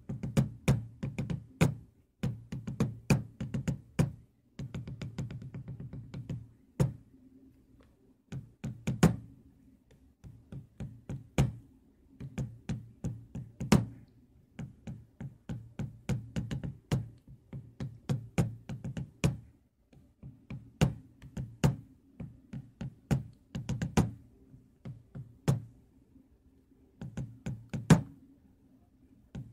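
Background music with a drum-machine beat: sharp percussive hits over a low bass line.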